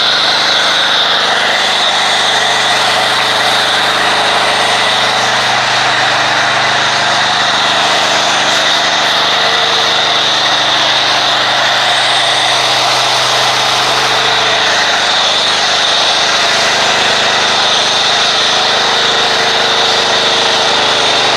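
Pressure washer running steadily, its motor humming under the hiss of the spray as it drives a foam cannon laying wash foam on a vehicle. It cuts off abruptly near the end.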